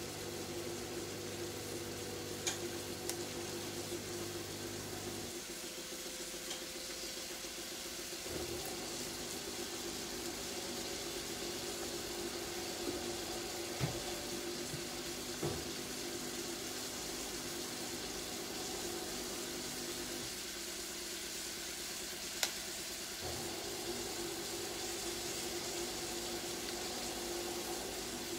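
Sliced onions and garlic frying gently in olive oil in a stainless steel pan, a steady soft sizzle as they begin to brown. A steady hum and a few light clicks lie underneath.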